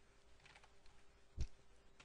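Faint computer keyboard keystrokes: a few scattered clicks and one heavier thump about one and a half seconds in, over a faint steady hum.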